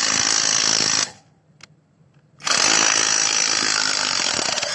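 Impact wrench hammering in two bursts of about two seconds each: the first stops about a second in, and the second starts about two and a half seconds in and cuts off abruptly near the end.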